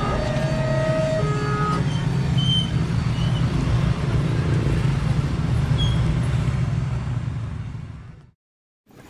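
Road traffic at a level crossing: many motorcycle engines running together in a steady low rumble, with a few brief tones in the first two seconds. The sound fades out near the end.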